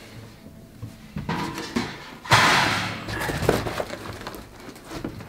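A cardboard box and its packing paper being handled and lifted away: rustling and scraping cardboard with scattered knocks. The loudest is a dense rustle starting a little over two seconds in.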